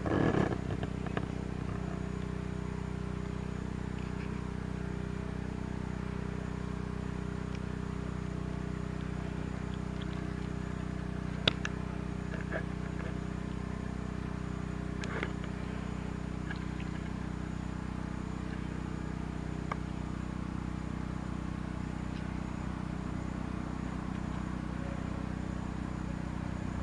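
A steady low motor hum runs throughout, with a faint high insect-like whine above it. A few knocks sound as the baby woolly monkey's hand grabs at the camera right at the start, and there is one sharp tap about eleven seconds in.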